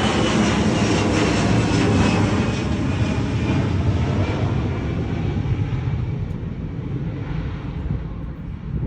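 Airplane engine noise, fading steadily as its higher pitches drop away, like an airliner moving off into the distance.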